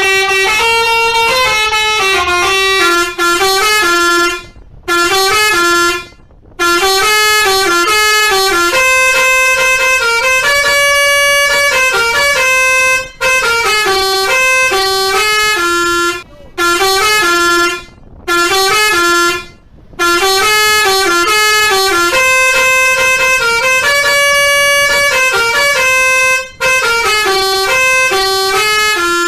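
Basuri telolet bus horn playing its multi-note tune: quick runs of stepping horn notes, repeated phrase after phrase with short pauses between them.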